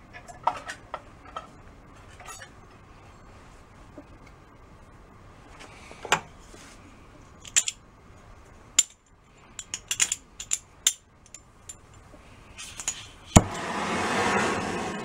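Scattered light metallic clinks and taps of metal parts and tools being handled. About a second and a half before the end comes a single sharp crack as an oxy-fuel torch lights, followed by the steady hiss of its flame.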